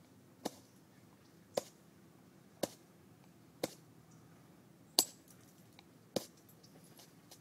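Green sheen obsidian being flintknapped by percussion with a copper bopper: six sharp, glassy clinks about a second apart, each a strike detaching a flake, the loudest about five seconds in.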